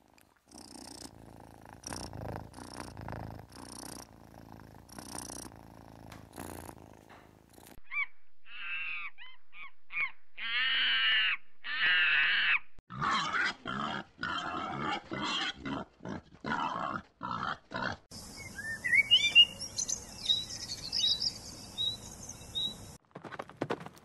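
Calls of several different animals in turn, as short separate recordings cut one after another. In the middle come loud, high, wavering calls from a monkey.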